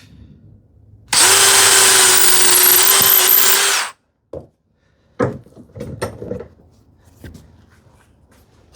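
Power drill running for about three seconds, drilling into a small wooden turn button, with a steady motor whine; it stops abruptly. A few light knocks of the wooden piece being handled follow.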